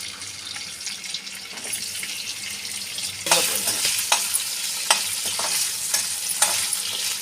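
Chopped okra frying in hot oil in a kadai, sizzling steadily while a ladle stirs it. From about three seconds in the sizzle grows louder, and there are several sharp scraping strokes of the ladle against the pan. The okra is being fried until its sliminess is gone.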